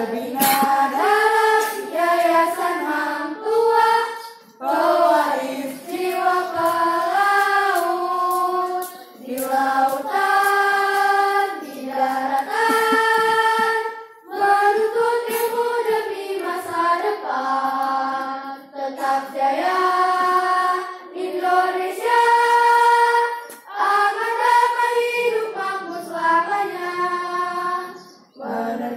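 Group of schoolchildren singing an Indonesian patriotic song together, phrase after phrase with brief pauses between.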